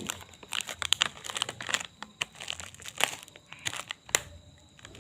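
Irregular crinkling and rustling, a rapid scatter of small sharp crackles with a louder click a little after four seconds in.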